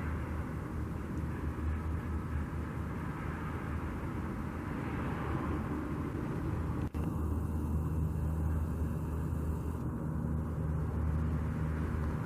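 Steady low hum of a vehicle engine running, with a haze of road or wind noise and a brief dropout about seven seconds in.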